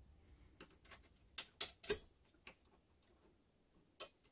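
Light clicks and taps from an airsoft gearbox and its small parts being handled during disassembly: a run of separate clicks over the first couple of seconds, then one more near the end.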